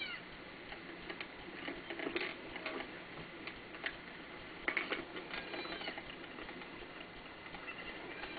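Irregular sharp clicks and taps over a steady hiss, with a faint, high, squeaky baby goat call about two-thirds of the way through.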